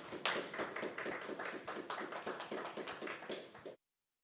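Audience applauding: a dense patter of hand claps that cuts off suddenly near the end.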